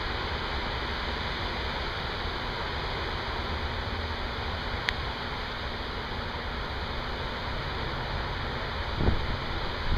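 Heavy rain falling steadily during a severe thunderstorm, with one sharp click about five seconds in and a low thump near the end.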